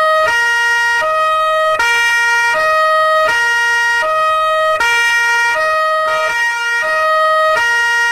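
Two-tone police siren alternating between a high and a low note, each held about three-quarters of a second, repeating steadily.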